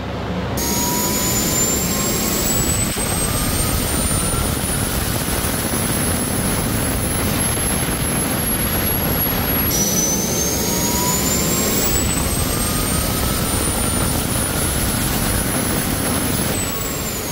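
Homemade turbocharger-based turbojet engine running at full noise: a loud rush under a high turbine whine that climbs steadily in pitch as the engine spools up, twice over. Near the end the whine starts to drop. Water is being sprayed into the compressor inlet as an external water-injection test.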